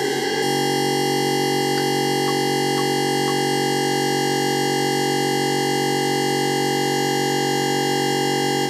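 DIY analog synthesizer oscillator (a VCO built around an LM13700 chip) holding a steady drone rich in overtones, played through software chorus and reverb. About half a second in, a wavering sound settles into the fixed-pitch drone.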